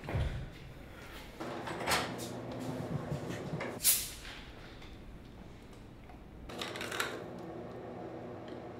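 Plastic soda bottle handled and its cap twisted open, with a sharp hiss of escaping carbonation about four seconds in. There are shorter rustling scrapes before it and another near the end, over a low steady room hum.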